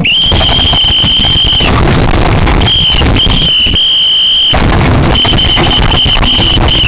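A loud, shrill, high-pitched tone sounds in several long blasts with short breaks, over heavy crackling noise.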